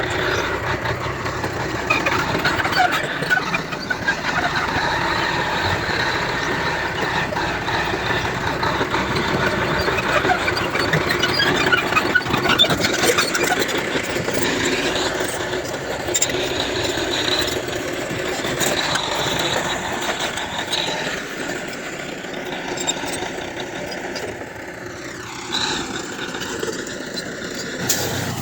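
Heavy earthmoving machinery running: diesel engines working, with frequent metallic squeaks and clanks. Near the end an engine's pitch dips and then rises again.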